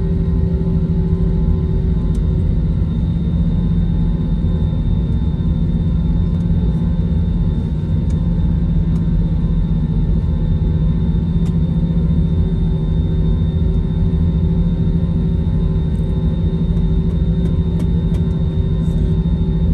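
Steady cabin rumble of an Airbus A321 taxiing on its jet engines at idle, with a droning hum over it and no rise in power.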